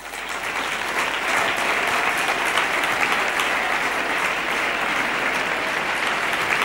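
Audience applauding, starting suddenly and filling out over the first second into steady clapping.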